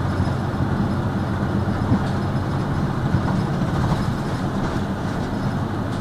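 Diesel engine of a 2001 Hino KL-HU2PMEA city bus running steadily under way, heard from inside the cabin as a low, even drone with light rattles.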